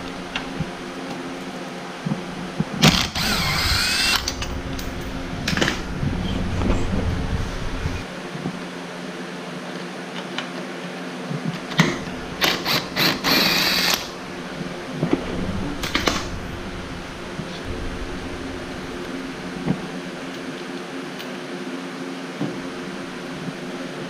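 Handheld cordless power tool whirring in short bursts as it spins out fasteners: once a few seconds in, then several quick pulses and a longer run about halfway through, and a brief one soon after, over a steady low hum.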